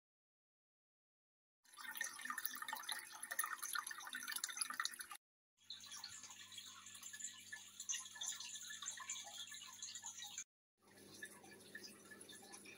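Aquarium water bubbling and fizzing as a stream of air bubbles rises from an air-driven sponge filter, with a low steady hum underneath. The sound starts after about a second and a half of silence and drops out briefly twice.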